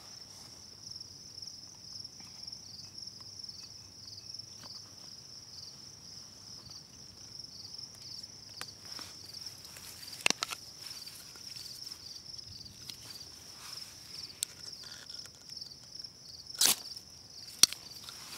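Fire steel (ferrocerium rod) scraped in short, sharp strikes: once about ten seconds in and twice near the end, the last strikes lighting a pile of fatwood shavings. Crickets chirr steadily behind it.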